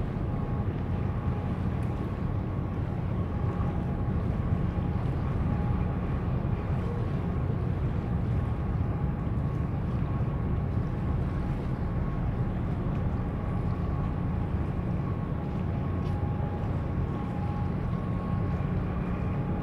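Steady low rumble of boat engines with a faint steady whine above it, and wind buffeting the microphone.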